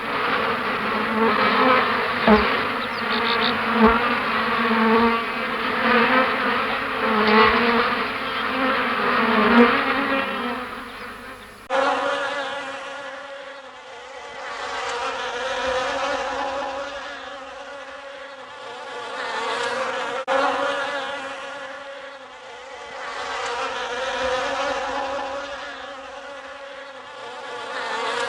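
Bees buzzing, several buzzing tones at once with a few soft knocks. About twelve seconds in it cuts abruptly to a different buzzing recording that slowly swells and fades, again and again.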